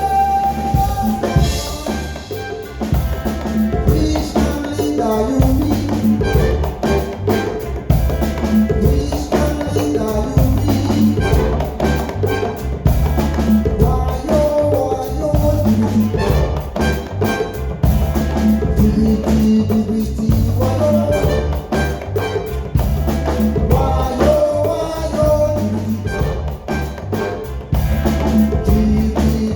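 Live band playing an up-tempo dance groove, with drum kit, bass and melodic lines over a steady rhythm.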